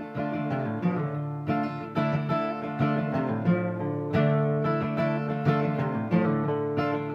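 Acoustic guitar playing a song's instrumental intro on its own, chords struck in a steady rhythm and left ringing.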